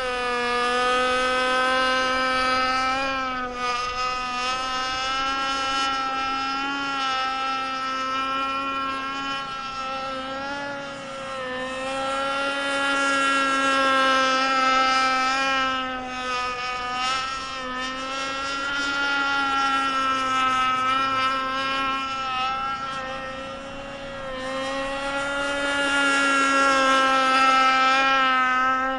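51-inch Micro Burst RC boat's motor running at speed, one steady high buzzing note with slight wavers in pitch. The note grows louder and fainter several times as the boat passes back and forth.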